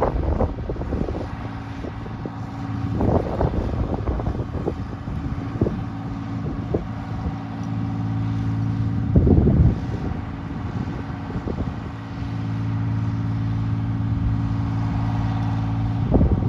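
Timberjack 230 skidder's Detroit Diesel engine idling steadily, with gusts of wind buffeting the microphone a few times.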